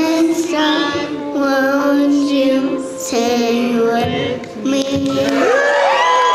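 Music with a sung vocal line of held notes. Near the end a voice glides up in pitch.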